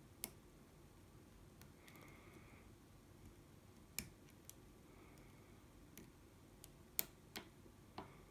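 Sparse, sharp metallic clicks of a hook pick and tensioner working the pins of an ASSA 700 lock while it is being picked, with about half a dozen clicks and the loudest about seven seconds in, over a near-silent background.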